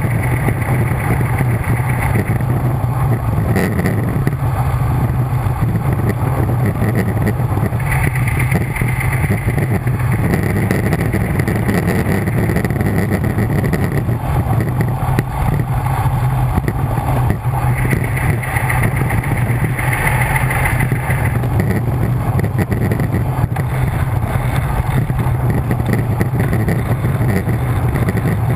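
Wind rushing over an action camera's microphone on a road bike descending at speed: a loud, steady rush. A higher whirring sound comes and goes a few times.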